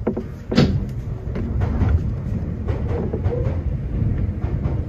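Toyohashi Railway Atsumi Line electric train rolling slowly over depot track, heard from inside the cab: a low running rumble with clicks and knocks from the wheels crossing rail joints and points. The sharpest knock comes about half a second in.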